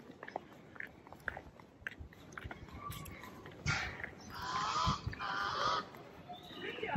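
Loud, harsh honking calls of a large bird: three or four raspy calls of about half a second each, starting about halfway through.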